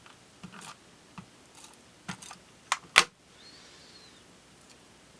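Paper and crafting tools being handled on a desk: scattered light taps and clicks, and one sharp knock about three seconds in.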